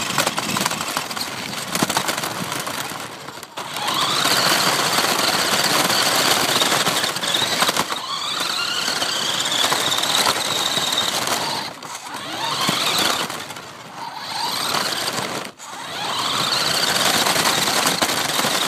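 Battery-powered RC car's electric motor whining with a rolling rattle of the wheels and chassis, heard from a phone taped onto the car. The whine rises in pitch about four times as the car speeds up, with brief dips in between.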